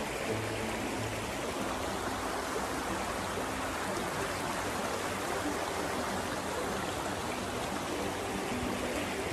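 Shallow, stony stream running over small rapids: a steady rush and babble of water.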